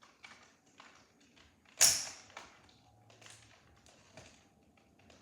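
Plastic clicks and knocks of an aiming sight being fitted onto a Dart Zone Max Stryker 2.0 dart blaster, with one sharp snap about two seconds in.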